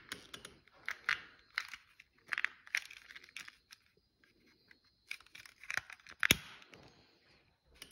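Irregular rustling and scraping handling noises, short and uneven, with one sharp click about six seconds in.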